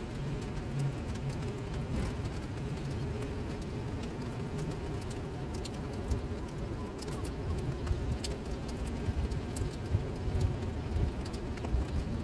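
Steady rain falling into puddles on paving stones: an even wash, with individual drop splashes ticking sharply through it, a few louder in the second half.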